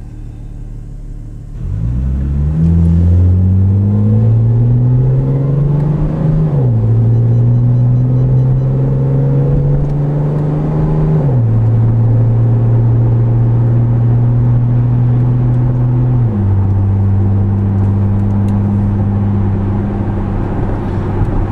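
2010 Chevrolet Camaro's 3.6-litre V6 through an MRT axle-back exhaust, heard from inside the cabin. It idles for a moment, then pulls away with the engine note rising through the gears, dropping in pitch at each of three upshifts. It then settles into a steady, subdued cruise.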